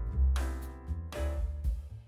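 Background music with pitched instruments and a few drum hits, fading out near the end.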